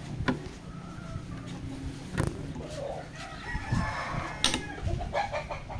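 A rooster crowing about three seconds in, with a few sharp clicks and knocks around it.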